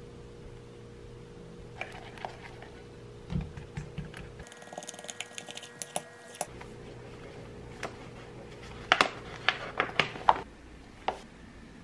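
Light clicks and taps of baking prep: a whisk knocking against a glass mixing bowl as egg, sugar and honey are mixed. Near the end comes a cluster of louder, sharper knocks as whole wheat flour is poured from its bag into a glass bowl on a kitchen scale.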